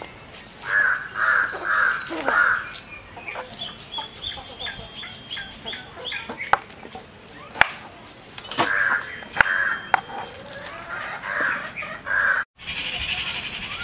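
Chickens clucking in a few short runs of repeated calls, with scattered sharp clicks between them; the sound drops out for a moment near the end.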